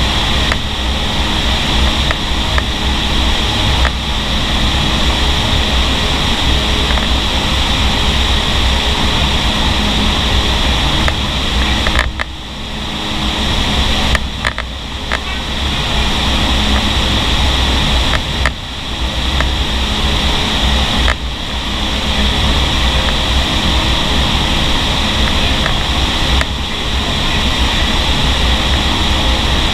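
Loud, steady rush of air in a vertical indoor-skydiving wind tunnel's flight chamber. The rush dips briefly several times around the middle.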